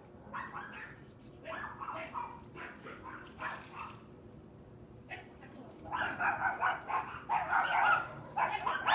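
Neighbor's dogs barking: scattered barks at first, then louder, faster barking from about six seconds in.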